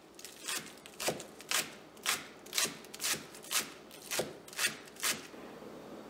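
Knife chopping green onions on a plastic cutting board: ten even chops, about two a second, stopping near the end.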